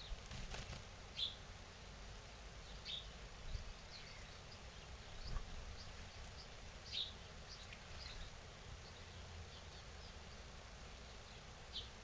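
Small garden birds chirping: short, separate high chirps every second or two, over a low steady background rumble.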